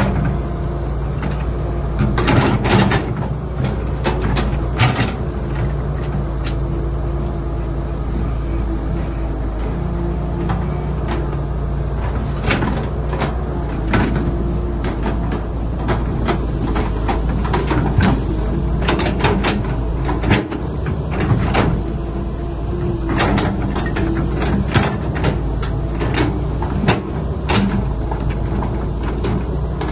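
Excavator's diesel engine running steadily, with frequent sharp metallic clanks and knocks from the machine working.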